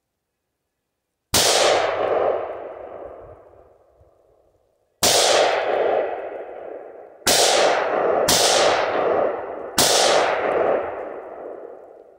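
AR-15 rifle firing .223 Winchester Silvertip rounds: five loud shots, each followed by a long echo that dies away over about two seconds. The first comes about a second in, then after a pause of nearly four seconds the other four follow in quicker succession.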